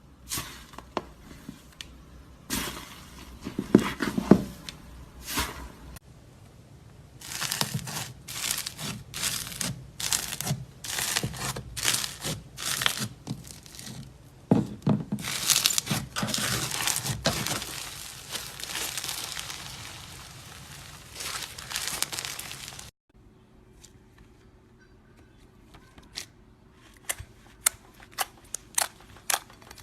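Slime being squeezed and worked by hand, making bursts of crackling and sharp clicking pops. The clicks thin out to a few scattered ones in the last several seconds.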